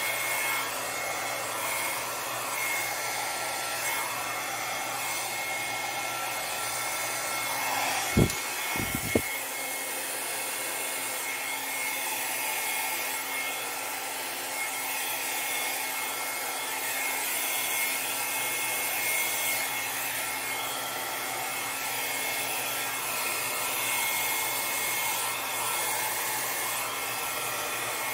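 Small hand-held hair dryer blowing steadily with a faint whine, pushing wet acrylic paint across a canvas in a Dutch pour. Two or three brief knocks about eight seconds in.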